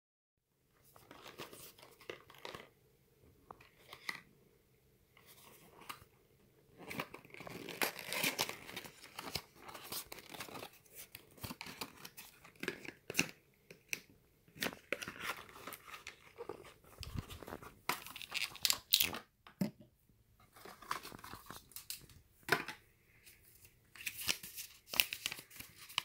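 A small cardboard medicine carton being handled and opened, with its folded paper leaflet: irregular rustling, crinkling and scraping of cardboard and paper, broken by short sharp clicks and taps.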